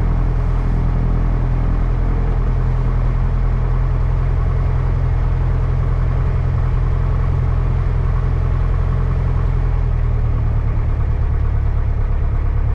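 Piper Cherokee 140's four-cylinder Lycoming engine and propeller droning steadily, heard from inside the cabin. The low tone shifts slightly about ten seconds in.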